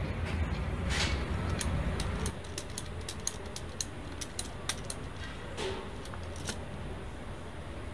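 Light metallic clicks and clinks, about ten of them at irregular spacing over three seconds, as a spanner is fitted and worked against the steel fittings of a hand-operated bending machine. A low steady hum lies under the first two seconds.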